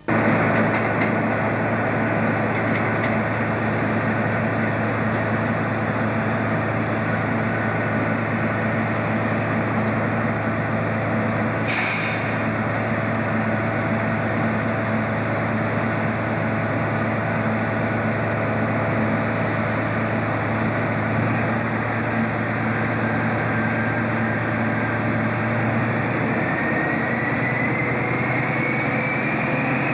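InterCity 125 Class 43 power car's Paxman Valenta diesel engine idling with a steady low hum. A brief sharp click comes about twelve seconds in. Near the end the engine revs up, with a rising turbocharger whine.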